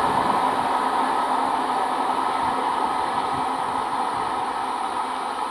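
Electric multiple unit (EMU) local train running along a curve: a steady rumble of wheels on rail with a steady hum.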